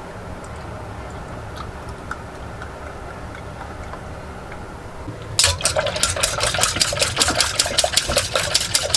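Pancake batter being mixed by hand in a bowl: rapid, regular clinks of the utensil against the bowl, about six strokes a second, starting about five seconds in.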